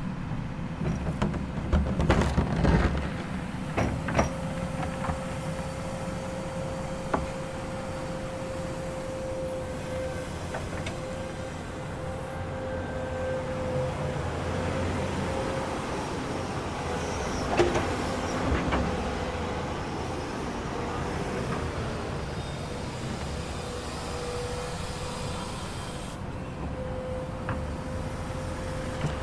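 Komatsu excavator running, a steady low engine rumble with a steady mid-pitched whine over it. Several sharp metallic knocks and clanks break in, a cluster a couple of seconds in and another past the middle.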